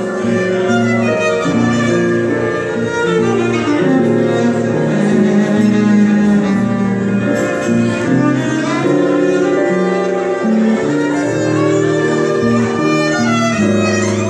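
Violin and piano duo playing a jazz ballad, the violin bowing long held notes.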